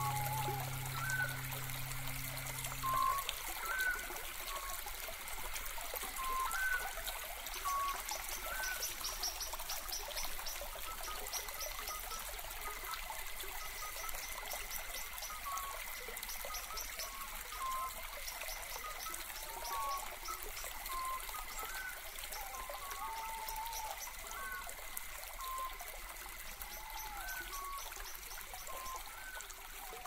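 Running water with a steady rush, under short chirping calls that come every second or so. A held chord of background music stops about three seconds in.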